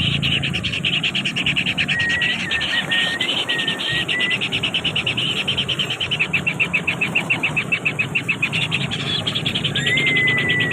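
Insects calling outdoors in a steady, rapidly pulsing chorus, several pulses a second. Thin whistled notes sound briefly over it twice, about two seconds in and again near the end.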